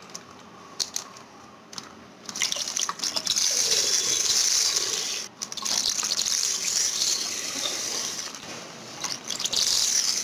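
Spiced buttermilk (masala chaas) poured from a pouch into a steel bowl of thick curd: a steady splashing stream of liquid into liquid. It starts about two seconds in after a few faint clicks, breaks off for a moment about halfway, and runs on.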